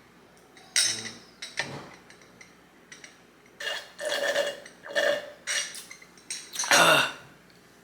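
Close-miked eating sounds: wet chewing and lip smacking on a lettuce-wrapped burger in short, separate bursts, with a burp among them.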